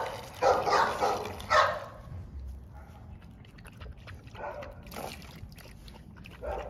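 A dog barks about three times in the first two seconds. After that come quieter, quick wet clicks as an American bully puppy laps water from a bowl.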